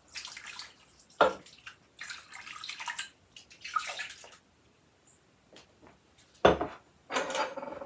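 Broth mixture poured from a glass cup over a roast in a slow cooker, trickling and splashing in a few pours over the first four seconds. A sharp knock, the loudest sound, comes about six and a half seconds in as the glass cup is set down, followed by a brief clatter.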